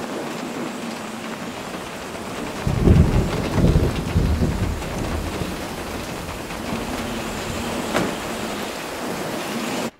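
Heavy rain falls steadily, with a low rumble of thunder about three seconds in. The rain cuts off abruptly near the end.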